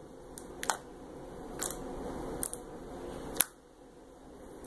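Fingers poking and pressing into a sticky slime, giving about five sharp sticky clicks and pops, the loudest near the end.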